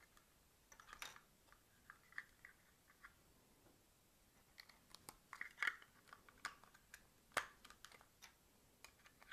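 Faint, scattered clicks and short rustles of small objects being handled by hand, coming in a few separate clusters.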